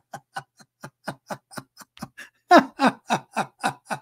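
A man laughing: a long string of short, even "ha" sounds, about four a second, getting louder about two and a half seconds in.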